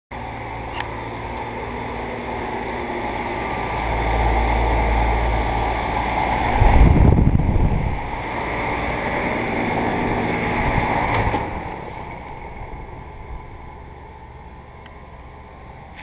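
2011 Goodman GSC13 4-ton central air conditioner condenser running: a steady hum with the rush of the condenser fan blowing air. Air buffets the microphone in a loud low rumble about seven seconds in, and the sound drops away after about eleven seconds.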